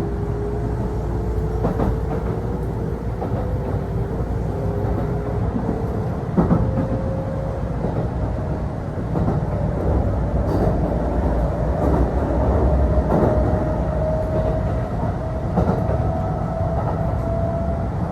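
Interior running sound of a Kintetsu electric train: a steady rumble under a whine that rises slowly in pitch as the train gathers speed. A handful of wheel knocks over rail joints come through, the sharpest about six seconds in.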